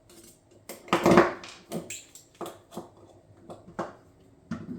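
Small parts of a pump paintball marker clicking and knocking as the bottom-line adapter is fitted, a string of separate sharp clicks with the loudest knock about a second in.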